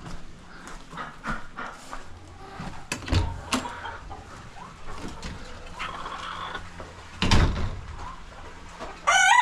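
Chickens clucking amid scattered knocks and thumps, with one loud thud about seven seconds in. A rooster starts to crow near the end.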